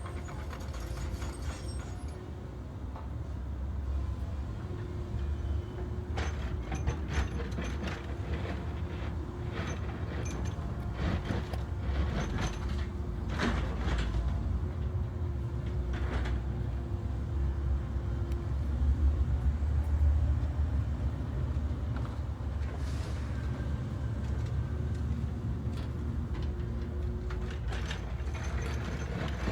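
Backhoe loader's diesel engine running with a steady low rumble, with scattered metal clanks and creaks that come thickest in the middle of the stretch.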